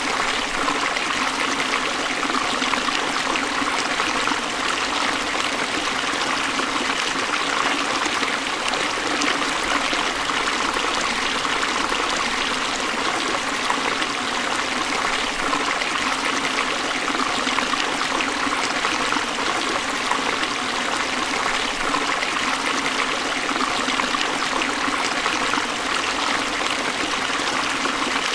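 Forest stream flowing steadily over rocks: a continuous, even rush and trickle of water.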